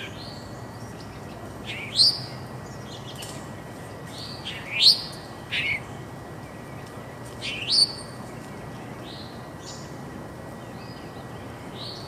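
Songbirds chirping: loud, short rising chirps about 2, 5 and 8 seconds in, with fainter chirps between, over steady low background noise.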